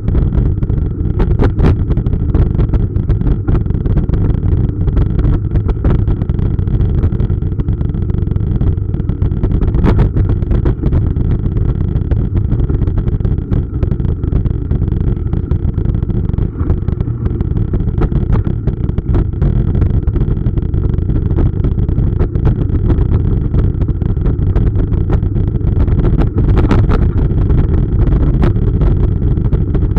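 Steady low rumble of a bike-mounted camera shaking as a mountain bike rolls over stone paving and cobblestones, with scattered clicks and rattles throughout.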